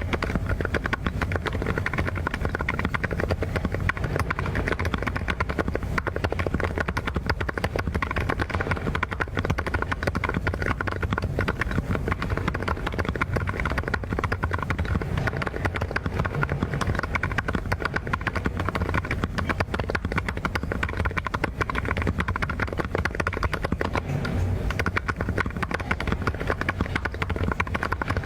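Mechanical keyboard being typed on quickly and continuously, a dense, even stream of keystroke clicks with a deep low thud under each.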